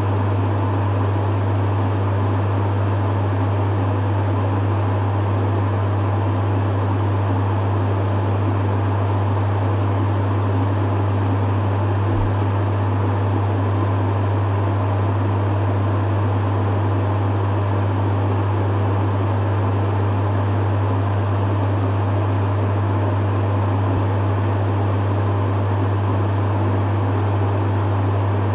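Dehumidifier running steadily: a strong, constant low hum under an even rush of fan air.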